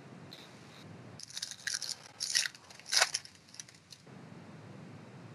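Cardboard trading cards being handled and slid across one another as a stack is worked through: a run of crisp rustles and flicks over a couple of seconds, loudest about three seconds in.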